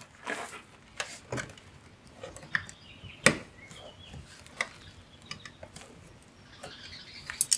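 Plastic trim tool prying at a car's rear door trim panel: a scattered series of sharp clicks and snaps as the panel's plastic retaining clips are worked loose, with light scraping in between; the loudest snap comes about three seconds in.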